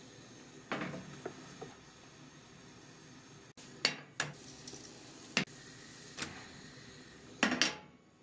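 A frying pan and a ceramic plate clattering: sharp knocks and clinks as a cooked blin is turned out of the pan onto the plate. There is one knock about a second in, several more from about four seconds on, and the loudest pair near the end, over a faint steady hiss.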